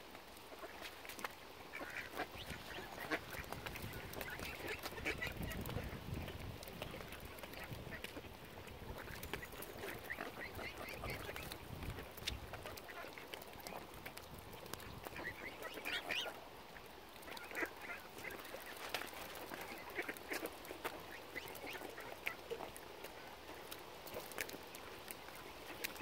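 A mixed flock of mallard ducks and mute swan cygnets calling in short bursts of quacking and chatter, recurring several times.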